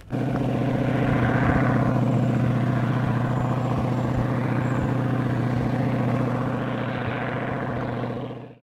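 Piston aircraft engine running steadily at a constant pitch, cut off abruptly near the end.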